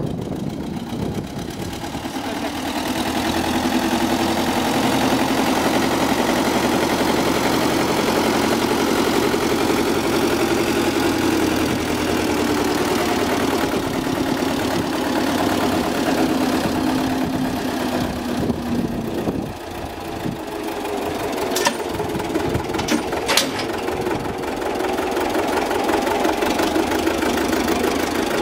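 MAN Ackerdiesel B18A tractor's diesel engine running steadily while working its front loader, getting louder over the first few seconds. The engine note drops briefly about two-thirds of the way through, followed by two sharp knocks.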